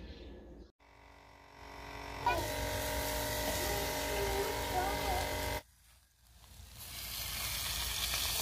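Chicken leg quarters sizzling on a hot charcoal grill grate. The sound cuts out abruptly about halfway through, and the sizzle builds again near the end as annatto (atsuete) oil is brushed onto the legs and smoke rises.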